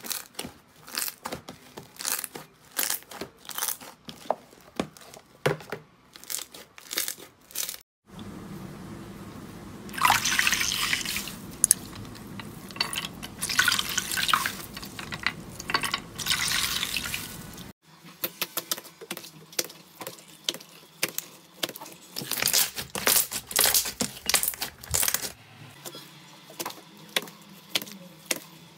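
Hands squeezing and kneading slime: a run of wet, sticky pops and squelches, denser and louder through the middle stretch.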